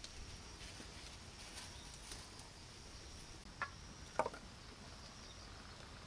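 Faint outdoor woodland ambience: a thin, steady, high-pitched buzz typical of insects, with two short, sharp chirps about halfway through.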